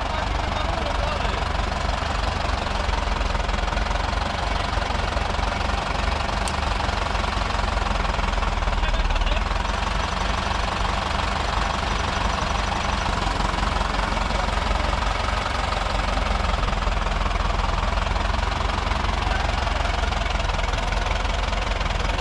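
Farm diesel engine running steadily at low revs, with no change in speed.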